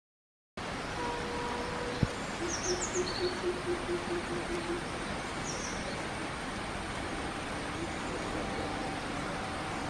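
Trackside outdoor ambience: a steady background hiss with birds chirping, and a quick run of low hoots, about four a second for two seconds. A single sharp click about two seconds in.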